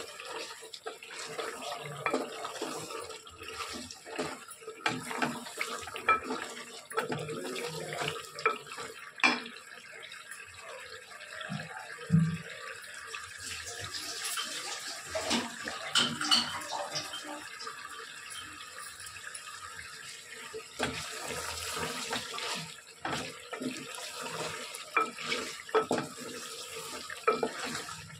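Water running and splashing, as from a kitchen tap, with scattered clinks and knocks throughout.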